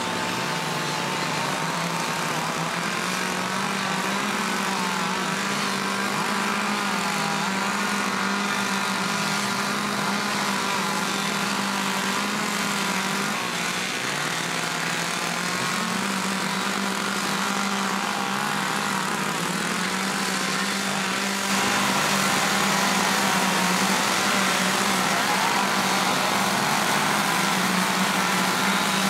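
Several chainsaws fitted with carving bars running at once, their engines rising and falling in pitch as they cut into wood. The sound gets louder about three quarters of the way in.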